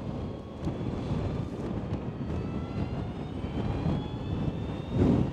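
Energica Experia electric motorcycle under way: a faint whine from its electric motor rises slowly in pitch as it gathers speed, under a heavy rumble of wind buffeting the microphone.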